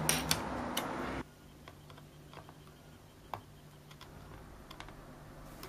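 Small sharp plastic clicks of a white multi-pin wire connector being released and pulled off its plug, over a steady hiss that drops out abruptly about a second in, leaving quiet room tone with a few faint clicks.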